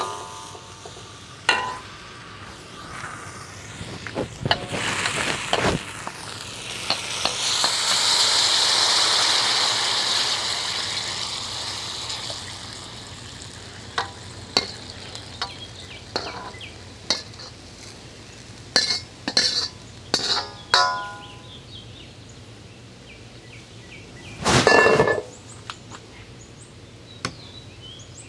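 Beef and broccoli stir-fry sizzling in a hot pan while a utensil stirs it, knocking and clinking against the pan. About seven seconds in the sizzle swells loudly, then dies back over several seconds; near the end there is one louder noise about a second long.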